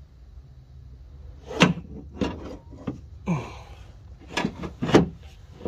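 Hard clunks and knocks of a replacement window regulator and motor assembly being worked into a car door, about six in a few seconds, loudest about one and a half seconds in and near the end.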